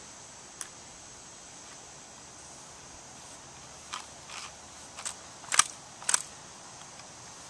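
A handful of short, sharp knocks and clicks scattered across a few seconds, the two loudest about half a second apart near the end, over a steady faint high-pitched background.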